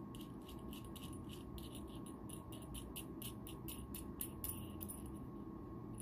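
Quick, light metallic clicks, about four a second, as the knurled metal coupling nut of a GX-series aviation connector is turned to screw it onto its mating socket; the clicking stops about five seconds in.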